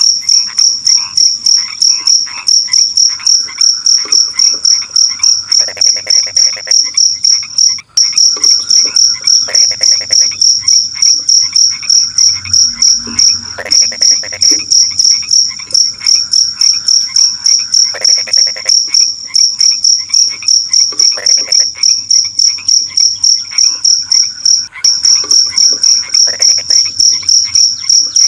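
Night chorus: a cricket chirping high and steadily in quick pulses, about three or four a second, with frogs croaking in short rattling bursts every second or two underneath. The chirping cuts out briefly twice.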